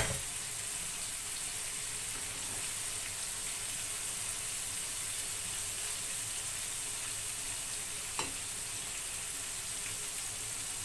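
Small flour-battered fish frying in hot oil in a frying pan, a steady sizzle, with one short clink of a metal skimmer against the pan about eight seconds in.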